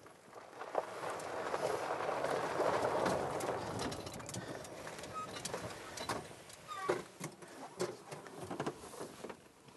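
Golf cart driving out of a shop onto a concrete drive. A rush of rolling noise swells and fades over the first few seconds, then comes a run of scattered clicks and knocks, with a few short bird chirps.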